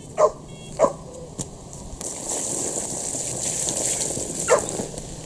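A dog barks three times: twice within the first second, then once more near the end. A steady hiss runs underneath from about two seconds in.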